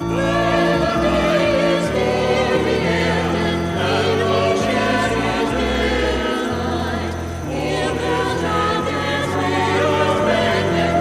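Background music with choir-like singing, starting abruptly.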